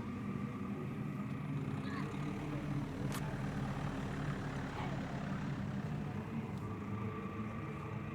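Steady low engine-like hum, with one faint sharp crack about three seconds in.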